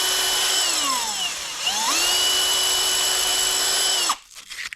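A high-speed power tool working the cut end of a steel push rod, with a steady whine. About half a second in, its pitch drops for about a second, as if slowing under load or being throttled back, then climbs back to full speed. It cuts off suddenly about four seconds in.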